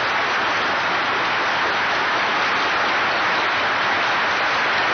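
Audience applauding steadily, a dense even clatter of many hands, heard on a 1967 recording with a dull, muffled top end.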